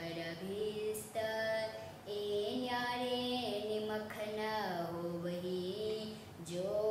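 Voices singing a devotional verse in a slow melody of long held notes that step up and down.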